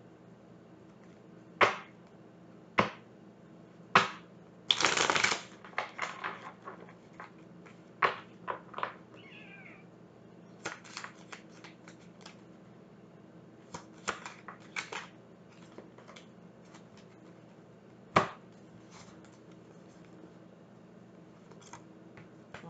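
Tarot cards being shuffled and handled: scattered snaps and clicks of cards, with a short shuffling burst about five seconds in and a cluster of card clicks in the middle, over a steady low hum.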